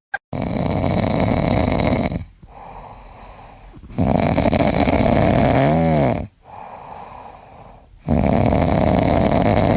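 Loud snoring: three long snores about four seconds apart, the middle one carrying a short whistling tone that rises and falls near its end.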